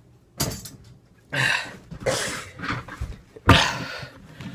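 A person's voice in several short, breathy, cough-like bursts, without words; the loudest comes near the end.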